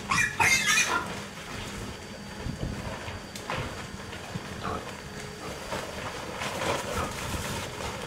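Pigs squealing, two loud squeals in the first second followed by fainter calls.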